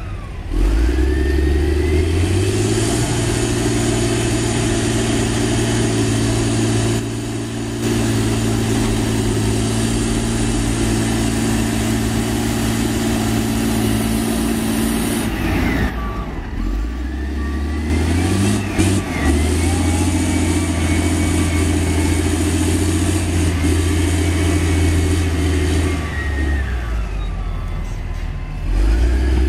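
Dynapac CT300 padfoot soil compactor's diesel engine revving up and holding high revs as the machine works, dropping back twice, around halfway and near the end, and revving up again each time. A thinner whine rises and falls with the revs.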